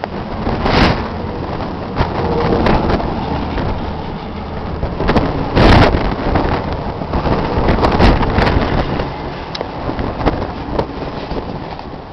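Massey Ferguson 255 tractor engine running steadily at idle. A few sharp knocks sit on top of it, the loudest about six seconds in.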